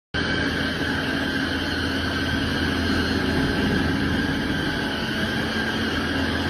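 Machine tool running steadily: a continuous mechanical din with a low hum and a high, even whine, starting abruptly at the very beginning.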